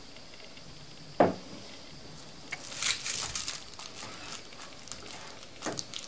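A single sharp knock about a second in, then irregular light rustling and crackling as hands handle the battery wires and tools over aluminium foil.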